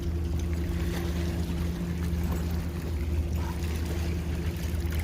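Water sloshing and splashing against shoreline rocks over a steady low engine hum.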